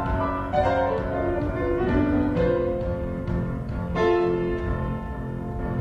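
Slow instrumental music: a piano playing a melody of single struck notes that ring and fade, a new note about every half second.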